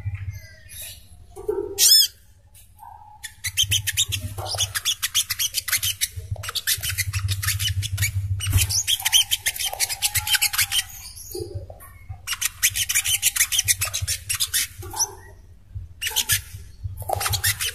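Sogok ontong (spiderhunter) song from a recording: long bouts of a very fast, high, chattering trill of sharp repeated notes, broken by short pauses. A steady low hum runs underneath.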